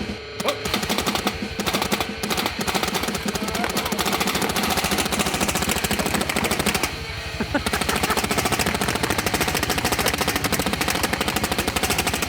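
Paintball gun firing in one long rapid-fire stream, many shots a second, with a short lull about seven seconds in.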